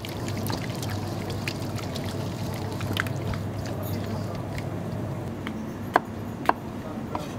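Wet squishing and clicking of raw sea bream pieces being mixed by a gloved hand in marinade in a stainless steel bowl, over a steady background hum. Near the end, two sharp knife strikes about half a second apart chop bell pepper on a plastic cutting board.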